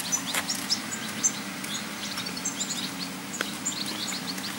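Small birds chirping, many short high calls a second, over a steady low hum.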